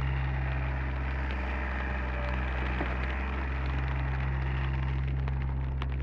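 Diesel engine of a Komatsu PC30 mini excavator running steadily, with a hiss that swells up and dies down again across the middle.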